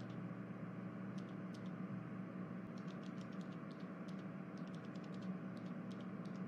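Faint room tone: a steady low hum and hiss with scattered faint ticks.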